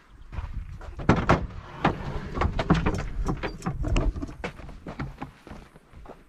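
Wind buffeting the microphone in a low rumble, with irregular knocks and rattles over it, the strongest about a second in; both ease off near the end.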